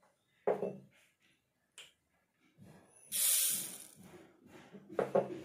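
Small seeds poured into a stainless-steel mixer-grinder jar of dried red chillies: a short hiss about three seconds in, after a soft knock and a click earlier.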